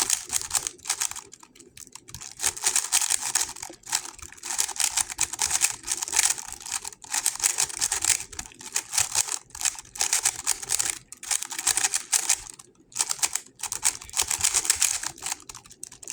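GAN 11 M Pro magnetic speedcube being turned fast during a timed solve: rapid runs of plastic clicking and clacking, broken by short pauses between sequences.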